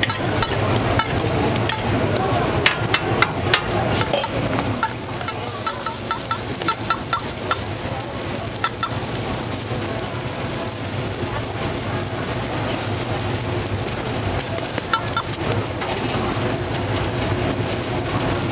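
Hotteok frying in oil on a flat-top griddle, with a steady sizzle and a low hum underneath. There are sharp clicks and taps in the first four seconds and a run of small ticks just after, as the pancakes are handled and pressed flat with a metal press.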